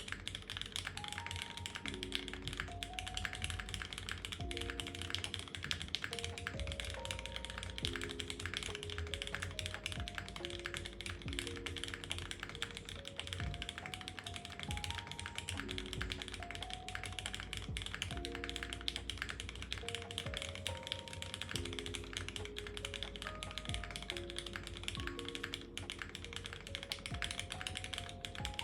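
Continuous fast typing on a Geonworks W1-AT custom keyboard: a dense stream of key clacks from plateless-mounted Cherry MX Black linear switches with no foam inside. Soft background music with held melodic notes plays underneath.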